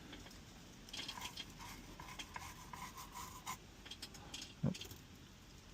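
Faint small clicks, taps and scrapes of hands handling tools and a circuit board on a workbench, with a faint thin tone for about a second and a half midway and one soft knock near the end.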